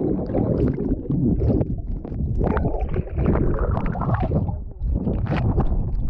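Muffled sloshing and gurgling of sea water around a waterproof camera held just under the surface, with irregular splashes from the swimmer's movements.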